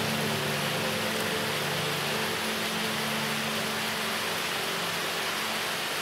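Steady hiss of falling water, like rain, at an even level. Soft background music dies away over the first couple of seconds.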